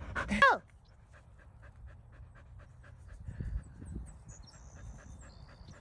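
A small long-haired dog panting rapidly, close up at first, cutting off sharply with a brief falling-pitch sound about half a second in; fainter panting at about three to four breaths a second goes on after, with a few low thumps.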